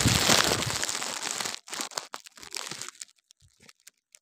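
Loud rustling and crinkling right against the microphone, heaviest in the first second and a half, then scattered crackles that die away about three seconds in: a plastic parcel mailer and clothing being handled close to the phone.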